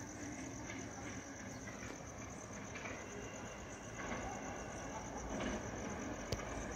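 Crickets chirping in a steady, pulsing high trill, with the low rumble of a distant approaching train growing louder from about four seconds in. One sharp click near the end.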